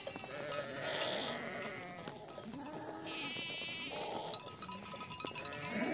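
A flock of sheep bleating, several animals calling over one another, some high-pitched and some low, each call wavering.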